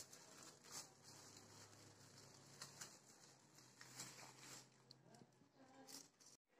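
Near silence: faint room tone with a low steady hum and a few soft taps.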